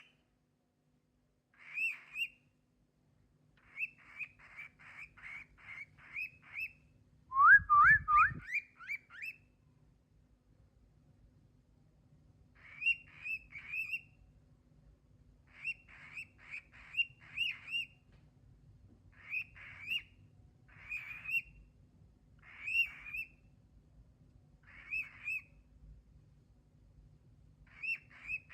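Cockatiel chirping in short groups of quick, repeated high chirps, with a louder run of rising whistled notes about eight seconds in.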